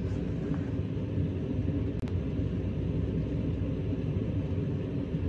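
Steady low rumble and hum of a Meitetsu 6800 series electric train standing at a platform, its on-board equipment running while the train waits. The sound cuts out for an instant about two seconds in.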